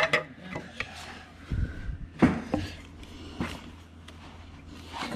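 Light knocks, clunks and scrapes of the air-filter box lid being set and pressed into place over the carburettor in a Vespa PX engine bay, a few sharper clunks between about one and a half and three and a half seconds in.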